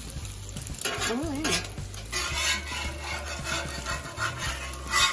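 Bacon and eggs sizzling in a pan, with a utensil scraping and stirring against the pan from about two seconds in, over a low steady hum. A brief wavering whine sounds about a second in.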